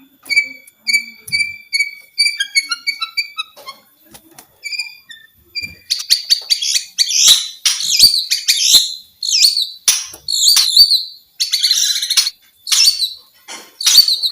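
White-rumped shama singing: a run of evenly repeated clear whistled notes, then from about six seconds in a loud, fast, varied song of rich whistles mixed with sharp clicking and chattering notes.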